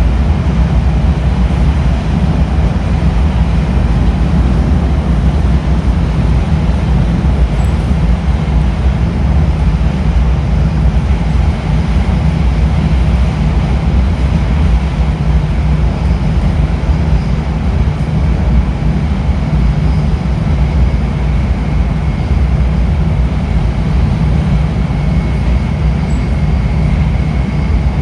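E5 series Shinkansen running, heard from inside a motor car: a steady deep rumble of wheels and track with even noise over it. A faint high steady tone comes in partway through and grows slightly stronger near the end.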